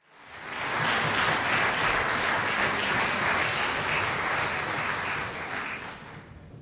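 Audience applauding. It swells up in the first second, holds steady, then dies away near the end.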